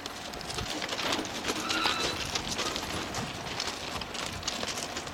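Irregular crunching steps on gravel track ballast over steady outdoor background noise.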